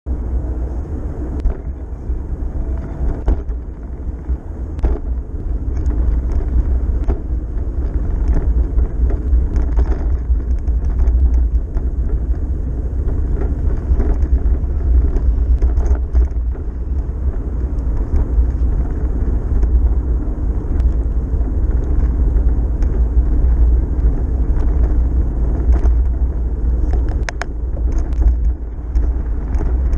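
Wind buffeting a handlebar-mounted camera's microphone during a bicycle ride, a steady heavy low rumble with tyre noise on pavement, and scattered clicks and knocks from the bike.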